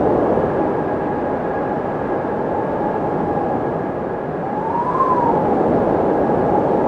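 Windmill turning with a steady whirring rush and a constant whine. About five seconds in, a tone rises and falls as the rotor comes round.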